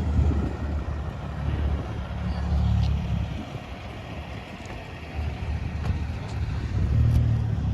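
Deep car engine rumble that swells and fades several times, as of performance cars running and driving by.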